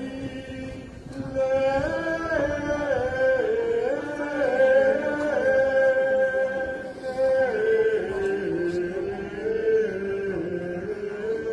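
Singing: a slow melody of long held notes, moving in small ornamented turns from one note to the next, with the pitch settling lower in the second half.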